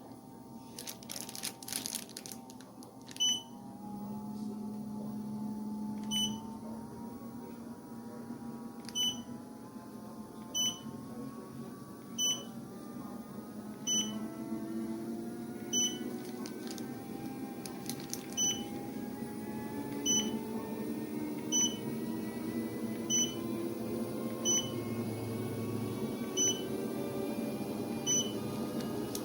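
Walking pad treadmill's motor running, its whine climbing slowly in pitch as the belt speeds up. A short high beep from the treadmill's controls sounds about every second and a half as the speed is stepped up.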